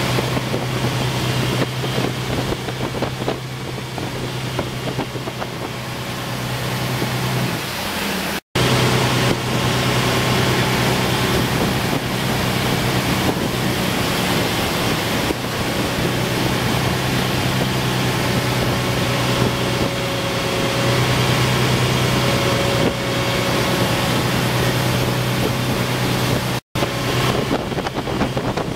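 Tow boat's engine running steadily under way, with wind buffeting the microphone and the rush of churned water from the wake. The sound is broken by two very short silences.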